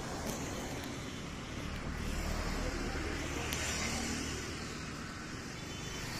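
Road traffic noise with a steady low rumble, louder for a couple of seconds in the middle as a car passes close by.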